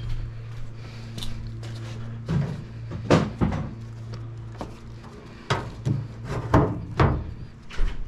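Sheet-metal outer case of a microwave being slid and seated back onto the unit: a run of knocks and clunks, more frequent in the second half, over a low steady hum that stops about five seconds in.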